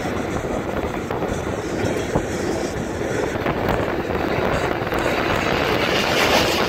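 Train running along the track: a steady rumble and rush of noise, with a sharp click about two seconds in.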